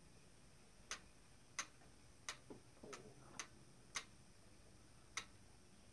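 Clockwork mechanism of an antique automaton running, its levers rising and falling with faint, slightly irregular clicks, about eight of them, roughly one or two a second.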